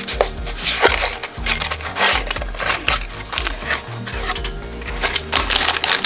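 Small cardboard box being handled and opened by hand: irregular scraping, rubbing and clicking of the cardboard flaps, over background music.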